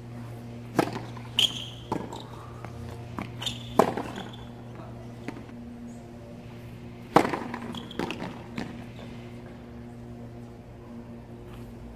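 Tennis balls struck by racquets and bouncing on a hard court: sharp pops of a serve and the rally shots after it early on, then a louder serve strike about seven seconds in followed by a few more hits and bounces. A steady low hum runs underneath.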